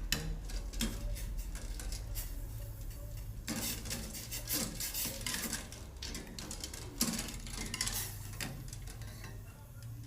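A utensil stirring in a cooking pot of water, scraping and clinking against the pot. The scrapes are densest a few seconds in and thin out toward the end. The water is heating but not yet boiling.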